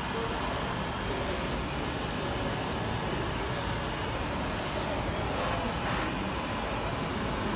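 Dyson hairdryer running steadily, blowing a constant rush of air.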